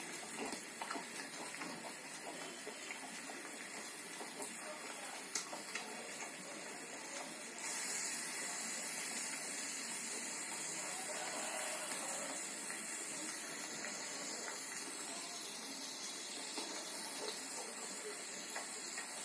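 Meat sizzling on a barbecue grill, a steady hiss that grows louder about eight seconds in, with a few faint clicks.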